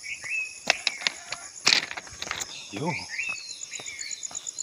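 Footsteps crunching on the loose stone ballast of a railway track, irregular sharp crunches throughout. Birds chirp in short calls, and from about three quarters of the way in an insect such as a cricket sets up a rapid, even, high-pitched pulsing.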